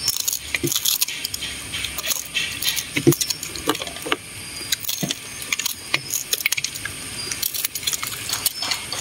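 Scattered clinks and clicks of dishes and eating utensils at a meal table.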